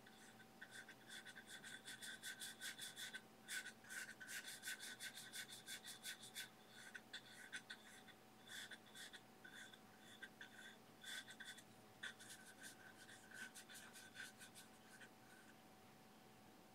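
No. 4 natural hog-bristle filbert brush scrubbing oil paint onto a smooth gesso-primed aluminium composite panel: faint, quick scratchy strokes in runs with short pauses, stopping near the end.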